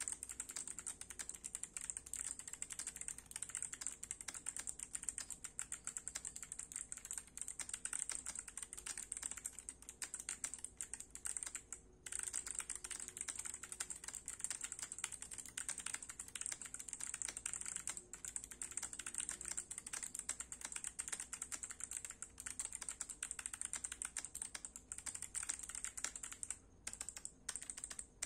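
Continuous fast typing on a CIY GAS67 mechanical keyboard with clicky Kailh Box Jade switches fitted with O-rings: a dense run of sharp, bright clicks, with a brief pause about twelve seconds in.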